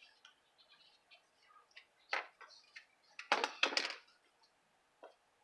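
A desktop stapler and paper being handled: light taps and paper rustles, then a sharp double clack a little over three seconds in as the stapler is pressed to staple a paper treat holder.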